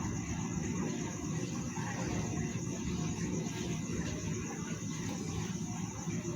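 Crickets chirping steadily over a low, continuous rumble.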